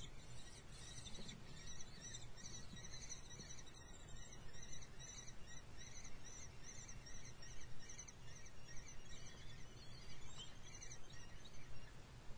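Common kestrel nestlings begging with thin, high, rapidly repeated chirping calls, a few a second, thinning out near the end, over a steady low hum and hiss.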